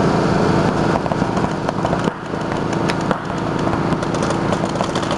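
Paintball markers firing rapid strings of sharp pops across the field, starting about a second in and coming thicker towards the end, over a steady engine-like hum.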